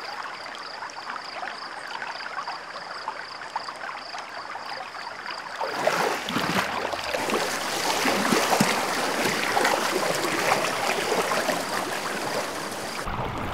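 Hippopotamuses moving through river water: soft splashing at first, over a faint high pulsing tone, then much louder churning and rushing water with splashes from about six seconds in.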